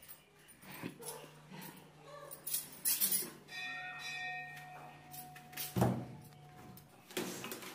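Steel plates holding watermelon slices clattering and knocking on a wooden table, with a metallic ring lasting a couple of seconds in the middle and the loudest knock near the end.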